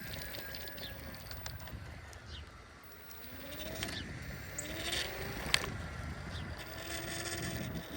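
Outdoor heat pump units running, a low hum underneath a motor whine that rises in pitch about halfway through and then holds steady. A single sharp click partway through.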